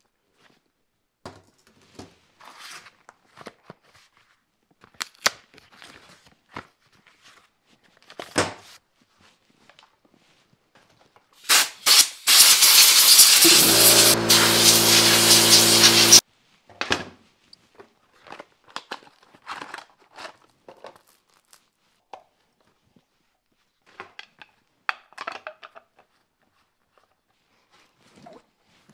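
Scattered clicks and knocks of a chainsaw's bar and parts being handled on a workbench. About halfway through, compressed air blasts from an air-hose nozzle: two short bursts, then about four seconds of loud steady hissing. A low steady hum from the air compressor's motor joins partway through the hissing, and the air cuts off suddenly.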